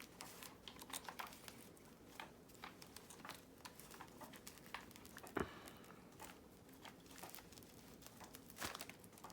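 Faint crinkling and small clicks from a Squawkers McCaw robot parrot's fur skin and plastic shell and clips being handled during disassembly, with a sharper knock about five seconds in and another near the end.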